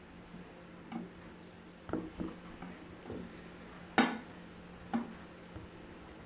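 A hand pressing chicken wings into a dry flour coating on a sheet of paper: about six irregular soft taps and thuds against the table, the loudest a sharp click about four seconds in.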